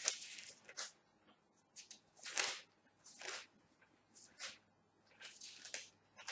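Bible pages being turned and rustled by hand: a string of short, papery swishes at irregular intervals.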